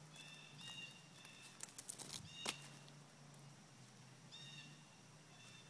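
A cat scrambling down a tree trunk: a quick run of claw scratches and knocks on the bark about two seconds in, ending in one sharp knock. Short chirps from a bird repeat throughout over a steady low hum.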